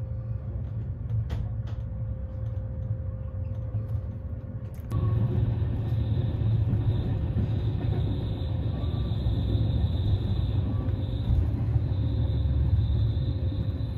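Sleeper train running on the rails: a steady low rumble with a few faint clicks near the start. About five seconds in it turns abruptly louder and fuller and stays that way.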